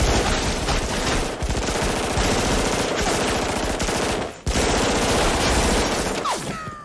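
Rapid automatic gunfire from a film shootout's soundtrack. Dense, fast shots run with a few brief breaks and die away near the end.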